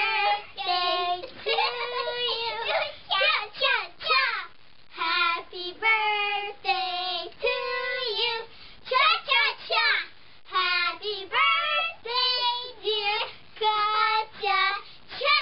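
Two young girls singing together, phrase after phrase with held notes and short breaks between lines.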